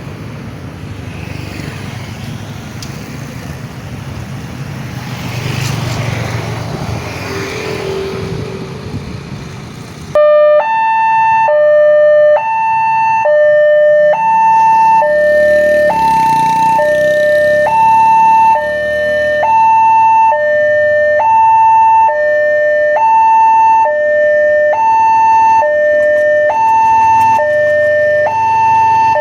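Traffic noise, then about ten seconds in a railway level crossing warning siren starts suddenly. It is a loud electronic two-tone alarm switching between a low and a high note about once a second over a steady higher tone, the warning that a train is coming and the barriers are closing.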